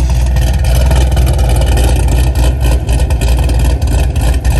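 GM V8 fitted with a TSP Stage 3 camshaft and NPP exhaust, running loud with a choppy, uneven beat and being revved. The choppy sound comes from the big aftermarket cam.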